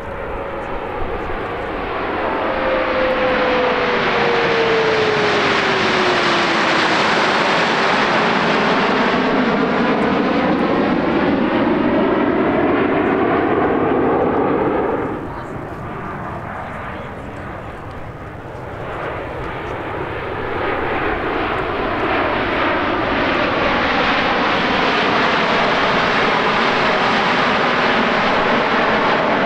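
A formation of CT-114 Tutor jets flying past, their turbojets making a loud rush with a whine that falls in pitch as they go by. About halfway through the sound drops off sharply, then builds again as jets approach.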